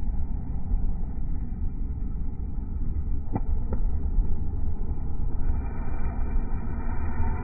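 Comfort Zone electric heater fan running, a steady low rumble of motor and moving air, with two faint clicks about halfway through.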